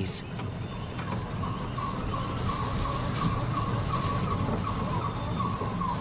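Prince Bernhard's titi monkeys calling in a duet: a long run of quick, repeated notes, with a low steady hum beneath.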